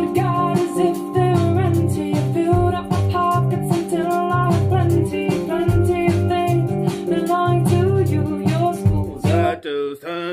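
A song with a singer and guitar, played back over hi-fi loudspeakers. It stops near the end.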